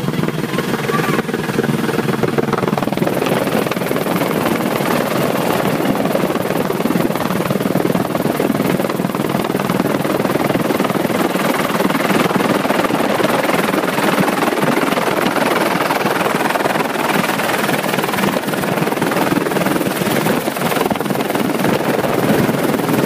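Helicopter engine and rotor noise heard from on board, loud and steady, as the helicopter comes down to land.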